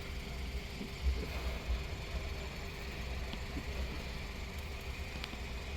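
Steady low hum of an idling vehicle engine, with a few faint knocks.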